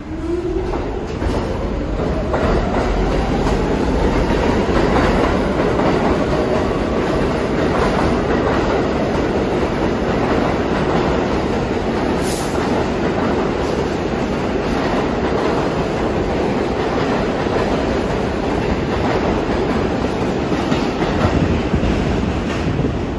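New York City subway train running on the 8th Avenue Line: the traction motors' whine rises in pitch over the first few seconds as the train picks up speed, then gives way to a steady loud rumble with wheels clacking over the rail joints. A brief sharp metallic click sounds about halfway through.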